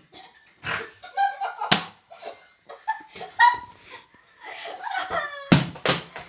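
Children laughing and shrieking amid rough play, with about four sharp smacks; the loudest two come close together near the end.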